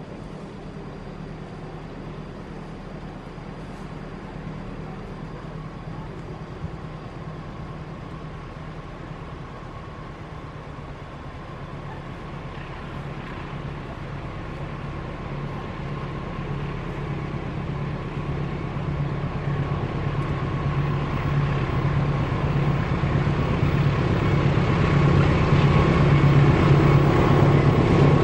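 Diesel locomotive of the Arjapurwo freight train approaching from behind, its engine a steady low throb with a faint whine above it, growing steadily louder as it nears.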